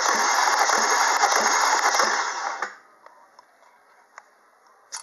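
Starter motor cranking a cold 1.8-litre Opel Z18XEP four-cylinder petrol engine for a compression test on the first cylinder. It cranks steadily with a regular beat of a little over two a second, then stops about two and a half seconds in.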